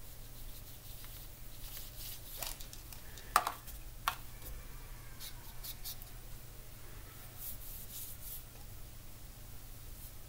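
Watercolour brush at work: faint bristle brushing and dabbing on paper and in the paint pans, with two sharp clicks a little after three seconds and at about four seconds as the brush is rinsed and knocked against the water container. A steady low hum sits underneath.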